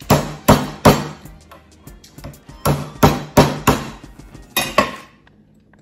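Large kitchen knife whacking down on boiled lobster shells on a wooden board to break them open: about nine sharp strikes in three quick bursts, the last pair near the end.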